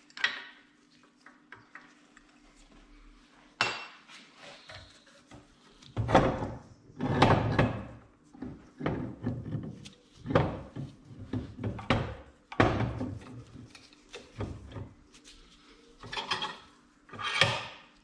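Metal clunks, knocks and scrapes of a cast turbocharger being handled, turned over and set down on a workbench, coming in irregular bunches that are heaviest in the second half. A faint steady hum runs underneath.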